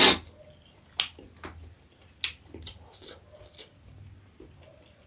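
Close-miked eating of jhol momo: chewing with sharp mouth clicks and lip smacks, the loudest right at the start and others about one second and two and a quarter seconds in.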